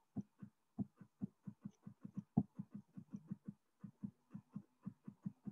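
Computer mouse scroll wheel clicking as a page is scrolled: a quick, slightly uneven run of faint ticks, about four or five a second.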